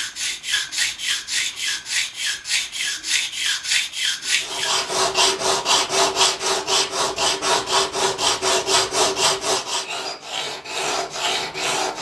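Spyderco Sharpmaker triangular ceramic rod rasping back and forth across a pocketknife's steel blade root, about three even strokes a second, grinding a sharpening notch (Schleifkerbe) at the ricasso. From about four and a half seconds in, a steady ringing tone runs under the strokes.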